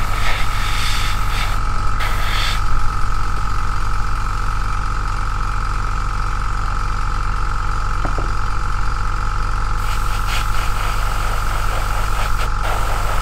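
Hobby airbrush compressor running steadily with a low hum and a constant whine, with short hisses of air from the airbrush now and then as a gloss coat is sprayed.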